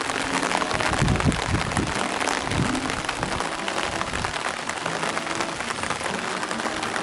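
Steady, heavy rain falling on a surface: a dense patter of many drops that starts abruptly and holds steady.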